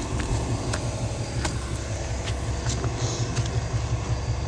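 A vehicle engine idling: a low, steady rumble, with a few light clicks scattered through it.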